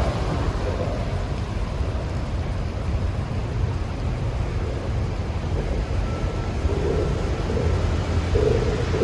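Wind buffeting a phone microphone outdoors: a steady low rumble with no clear events.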